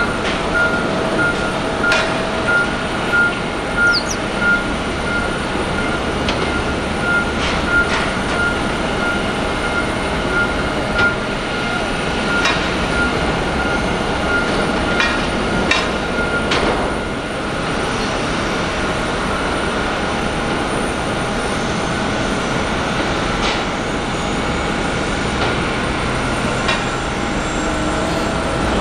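Airport ground equipment working during cargo unloading from an airliner. A warning beeper sounds about twice a second until a little past halfway, then stops. Over a steady rumble there are scattered metallic clanks and knocks.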